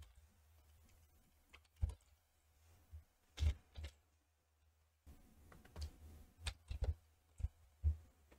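Faint computer keyboard keystrokes and mouse clicks: about nine separate short clicks, several of them close together near the end.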